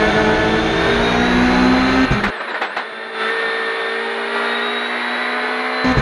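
Hyundai i20 WRC rally car's turbocharged four-cylinder engine heard from inside the cockpit, pulling hard with its pitch climbing over the first two seconds. About two seconds in, the sound turns thinner, without its bass, and holds a steadier note until near the end, when the full sound returns.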